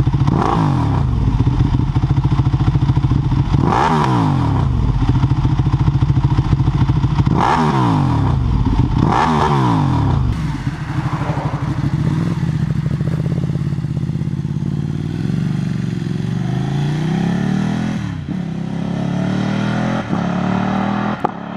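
Ducati Panigale's 90-degree V-twin with an Akrapovič exhaust blipped four times at standstill, each rev shooting up and falling back. Then, from about ten seconds in, a Panigale running on the road, its engine note climbing steadily and breaking twice near the end, as at gear changes.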